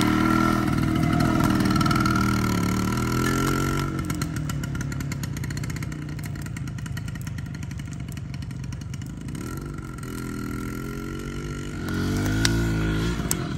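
Harley-Davidson X-90 minibike's small two-stroke single-cylinder engine revving as the bike pulls away, fading as it rides off across the yard, then growing louder again as it comes back.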